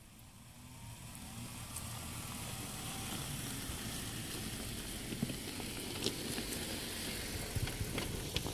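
Jeep Wrangler Rubicon engine running low and steady as the Jeep crawls down a dirt trail, growing louder over the first couple of seconds. Its tyres roll over loose dirt and stones with a few small crunches.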